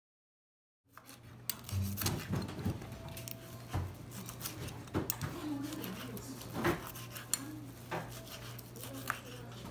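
Knife slicing grilled beef on a wooden cutting board, with the meat held in metal tongs: irregular knocks and clicks of blade on board and metal on metal, over a low steady hum. It starts about a second in.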